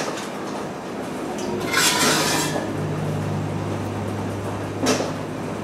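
Metal ladle clinking against a stainless steel stockpot as brine is scooped out, with a short louder swish about two seconds in and another clink near the end.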